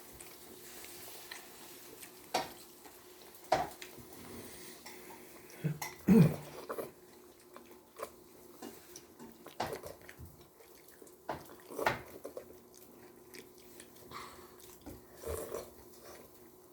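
Utensils and dishes clinking at a meal: a few sharp, separate clicks and knocks several seconds apart, the loudest about six seconds in, over a faint steady hum.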